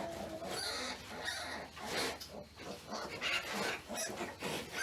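Pigs grunting, a quick irregular run of short grunts.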